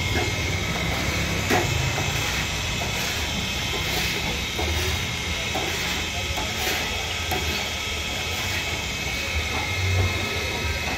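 Chicken pieces deep-frying in hot oil in a karahi, a steady sizzle with occasional light crackles, over a low hum.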